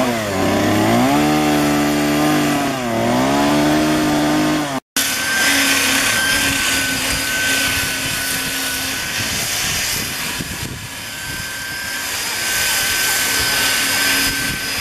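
Chainsaw engine running under load, its pitch sagging twice as it bites into the wood and picking back up. Then a corded electric grinder whines steadily as it grinds the wood.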